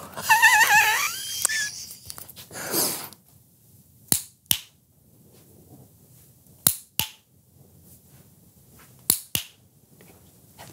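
A loud warbling, wavering tone in the first two seconds and a short hiss. Then sharp snaps in quick pairs, three pairs a couple of seconds apart, like finger snapping.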